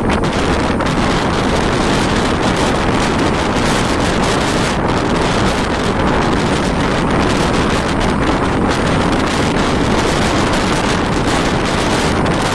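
Steady rush of wind buffeting the microphone at the open window of a moving bus, with the bus's engine and road noise beneath it.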